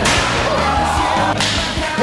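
Loud sharp pops on a tiled floor, one at the start and another about a second and a half later, over background music.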